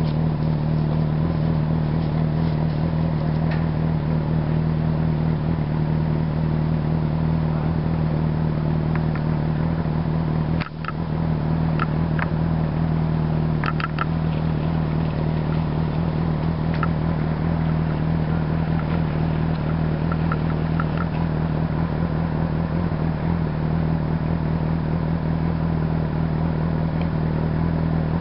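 A steady low engine hum running unchanged, with a brief dip about ten seconds in and a few faint, short high clicks scattered after it.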